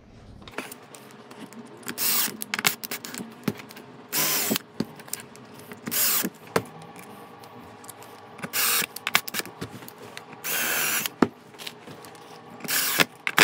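Ryobi cordless drill/driver driving small screws into a wooden frame in several short bursts, each under a second, with clicks and knocks from handling the screws, hangers and tools in between.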